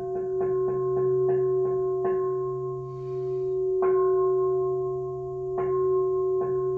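Large temple bowl bell struck over and over, each stroke ringing on under the next. The strokes come at a steady pace of about two a second, stop about two seconds in, return as two single strokes nearly two seconds apart (the louder of them about four seconds in), then pick up again near the end.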